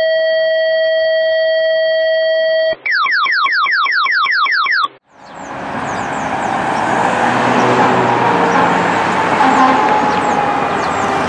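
An electronic tone is held for almost three seconds, then gives way to a run of fast rising electronic chirps, about five a second, that stop suddenly. After a moment's silence, steady road traffic noise comes up, and a fire engine's siren wails at a distance behind it, slowly falling in pitch.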